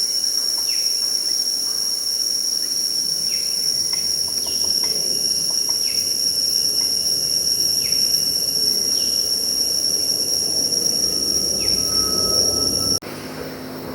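Tropical forest insects droning steadily at a high pitch, with short calls sliding downward in pitch every second or two. About a second before the end the drone cuts off suddenly and a quieter, lower background takes over.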